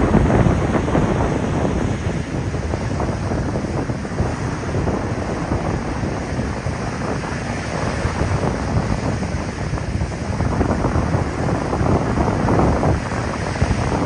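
Gulf of Mexico surf breaking and washing up the beach in a continuous rushing wash. It swells as waves break, near the start and again near the end.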